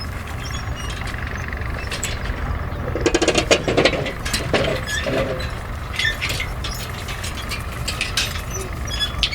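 Machinery running with a steady low rumble, overlaid by scattered metallic clinks and knocks; a voice calls out briefly about three seconds in.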